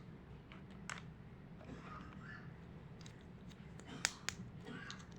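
Tiny toy kitchen set pieces being handled, with sharp clicks: one about a second in and two in quick succession near the end. Faint rustling and light taps lie in between.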